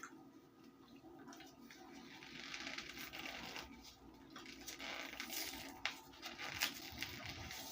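Baked cornstarch being bitten and crunched close up: irregular dry crackling with a few sharp clicks near the end.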